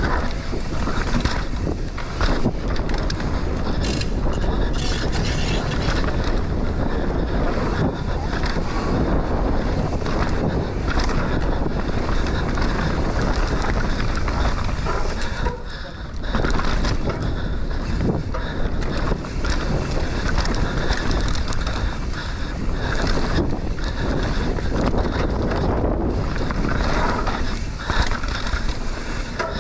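Mountain bike descending a race track at speed: steady wind rush on the microphone with tyre noise and frequent knocks and rattles of the bike over rough ground, easing briefly about halfway through.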